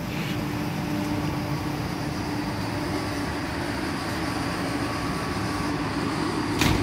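Steady hum of an ED4M electric multiple unit standing at the platform, its onboard equipment running with a held low tone. A brief burst of noise comes near the end.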